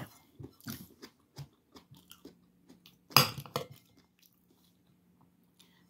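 A person eating close to the microphone: chewing with small crunching clicks, and one louder sound about three seconds in as a spoon is used at the plate.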